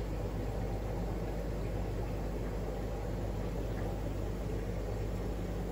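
Steady low hum and rumble of running aquarium equipment, unchanging throughout.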